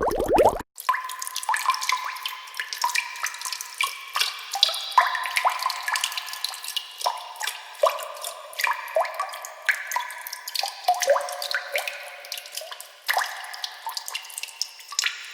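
Water dripping: irregular drops plinking into water, each a short ringing plop, several a second. It follows a different, denser sound that cuts off just under a second in.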